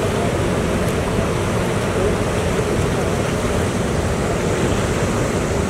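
Wind rumbling steadily on the microphone over choppy water, with the splashing and lapping of swimmers kicking along on inner tubes.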